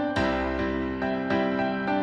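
Background music: soft, slow piano or electric piano with sustained chords and notes changing about every half second.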